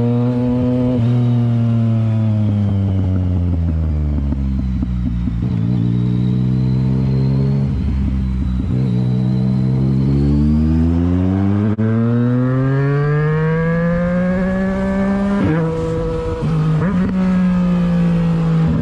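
Motorcycle engine heard from the rider's seat. Its pitch falls as the bike slows for the first few seconds, then rises steadily as the rider accelerates, with two quick breaks in the note near the end as gears are shifted.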